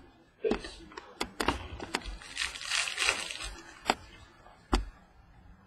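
Baseball cards handled on a tabletop, with several sharp taps and clicks as they are squared up and set down. For about a second and a half near the middle, a foil card-pack wrapper crinkles as it is torn open.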